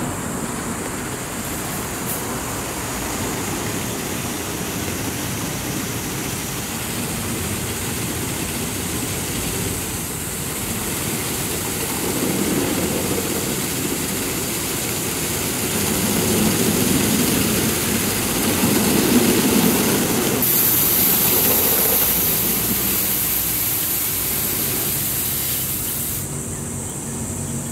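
Automatic gantry car wash at work: its rotating cloth brushes and water spray run over a car as a steady wash noise. The noise grows louder in the middle, and a high hiss comes in about twenty seconds in.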